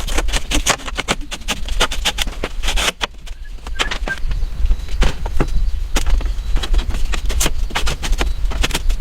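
Many quick, irregular knocks and clicks over a steady low rumble, with a short lull about three seconds in.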